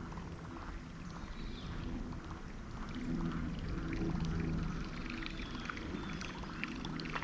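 Creek water trickling and splashing around a kayak, with a low droning hum that swells about halfway through.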